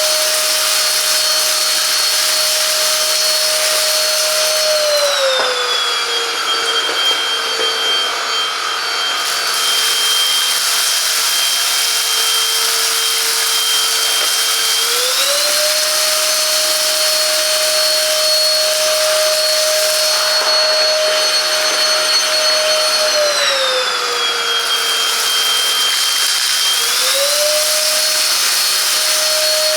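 Silvercrest cordless cyclone handheld vacuum cleaner running: a steady motor whine with a rush of air. The whine glides smoothly down in pitch a few seconds in and back up a few seconds later, then does the same again near the end.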